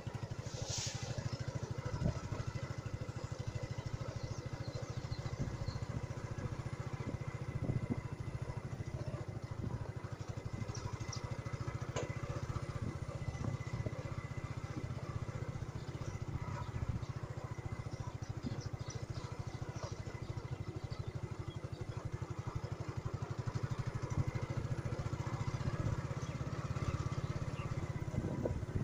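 Motorcycle engine running steadily as the bike rides along a dirt track.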